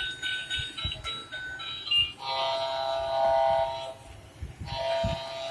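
Bump-N-Go fountain boat toy's built-in sound chip playing a tinny electronic tune of single beeping notes. About two seconds in, a long steady horn-like sound effect takes over; it stops near four seconds and starts again about a second later.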